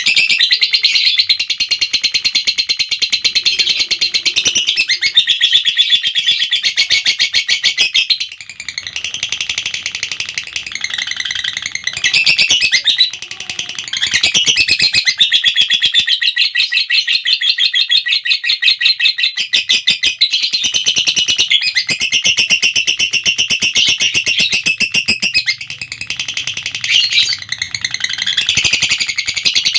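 Lovebird ngekek: a shrill, rapid chattering trill held for many seconds at a stretch, broken by a few short pauses before it starts again.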